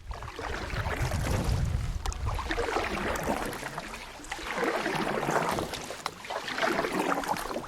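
Canoe paddle strokes in water, a swishing and splashing that swells and fades about every two seconds, three times.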